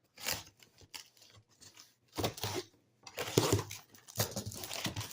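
Cardboard shipping box being opened by hand: a string of short scraping and tearing sounds as packing tape is torn and the flaps are pulled back, running into steadier rustling near the end.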